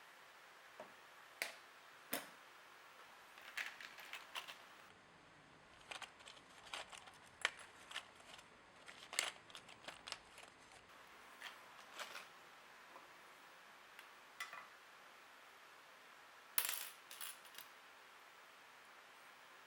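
Steel drill bits clicking and clinking against one another and a magnetic holder as they are set down and shifted: a scatter of small, sharp metallic clicks at irregular intervals, the loudest a cluster late on.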